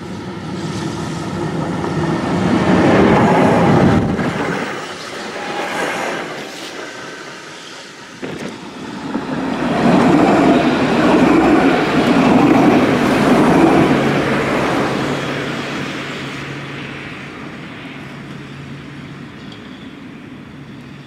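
Electric trams running on street track. A TFS tram passes close, building to a peak about three seconds in and fading. A second tram then passes even louder around ten to fourteen seconds in, leaving a steady low hum that dies away as it draws off.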